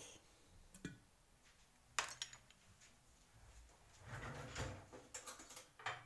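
Quiet kitchen handling noises as dried figs go into a large glass jar of grapes: a click just under a second in, a sharp knock about two seconds in, then a run of rustling and clicking near the end.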